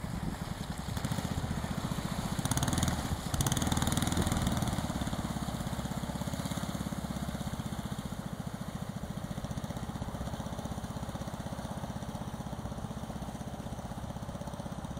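Jet canoe's small engine running with a fast, even pulse. It is louder for a moment about three seconds in, then slowly fades as the canoe moves away.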